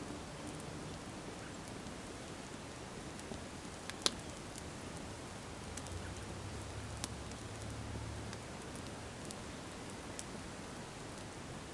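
Sneakers burning in open flames: a steady hiss with scattered crackles, and one sharp pop about four seconds in.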